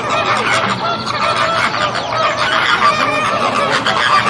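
A flock of flamingos calling together, a dense chorus of many overlapping, goose-like honks.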